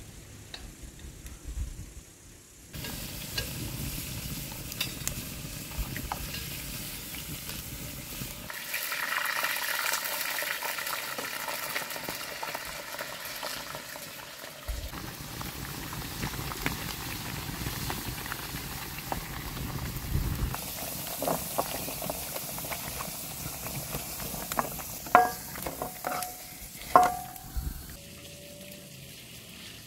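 Food sizzling in a frying pan over a wood fire, with a utensil stirring in the pan. A few sharp knocks near the end.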